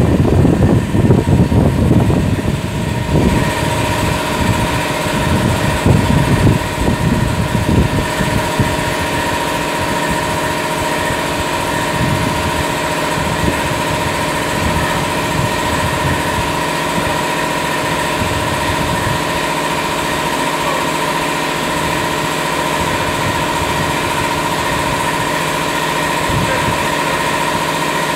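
Touchless W360 car wash machine running its pump and drive motors. A steady machine whine sets in a few seconds in, over a low, uneven rumble that dies away after about eight seconds.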